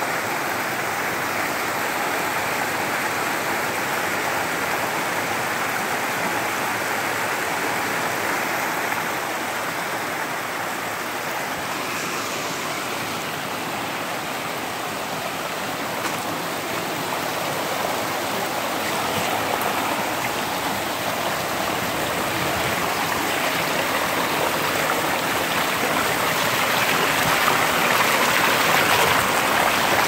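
Mountain creek water running and splashing over boulders at the foot of a waterfall, a steady even rush that grows louder over the last few seconds.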